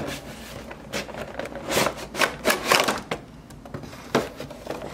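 Cardboard and plastic action-figure packaging being handled as the window box is opened and the plastic tray is slid out: irregular rustling and scraping, with a sharp click about four seconds in.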